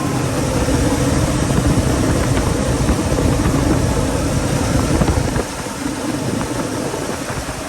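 Chevrolet Monte Carlo SS's carbureted engine idling, being run to check that the fuel flows and nothing leaks after a one-way check valve was fitted in the fuel line. It runs a little louder for about five seconds, then settles slightly quieter.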